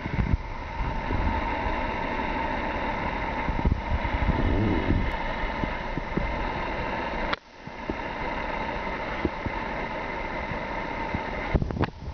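A steady mechanical hum that drops out briefly about seven and a half seconds in, with a few soft knocks.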